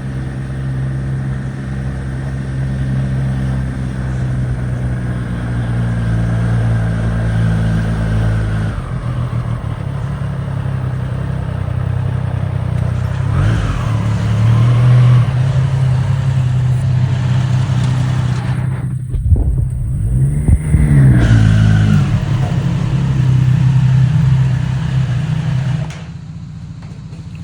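Triumph Street Triple RS's three-cylinder engine running with a steady note, its pitch shifting a few times and dipping then climbing again about two-thirds of the way through. The engine sound drops sharply just before the end.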